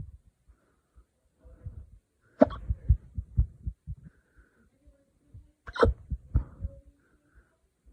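A person hiccuping twice, about three and a half seconds apart: each hiccup is a sharp, sudden catch followed by a few short low thumps. The hiccups were brought on by drinking wine too fast.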